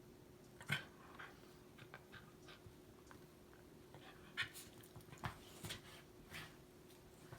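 Dog working at a treat with its mouth: an irregular scatter of short, quiet smacking and crunching noises, two or three of them louder than the rest.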